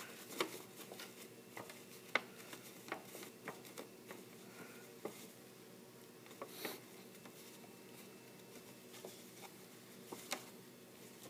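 Faint handling of a paper cube: scattered soft taps and rustles as fingers press and turn the glued paper, over a steady low hum.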